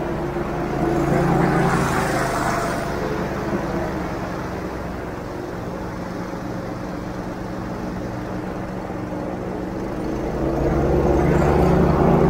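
Airboat engine and propeller running steadily, revving up louder twice: about a second in and again near the end.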